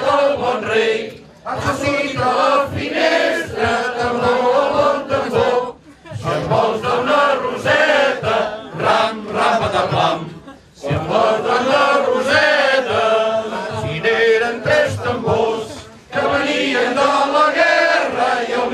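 A group of men singing a Catalan song together, unaccompanied, in phrases of about four to five seconds with short breaks between them.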